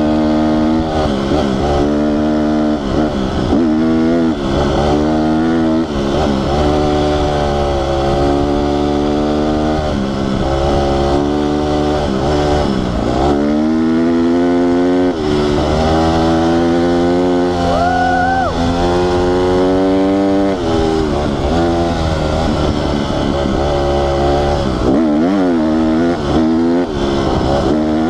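Honda CRF150R dirt bike's single-cylinder four-stroke engine running hard while riding, its revs repeatedly dropping and climbing again as the rider shifts and works the throttle.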